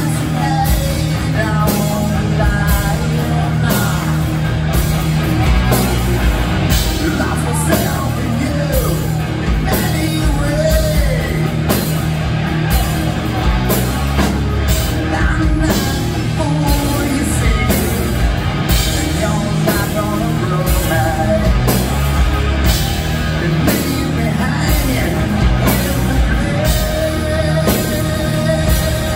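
Live rock band playing: electric guitars, bass guitar and drum kit with a lead vocal sung over them, and a long held note near the end.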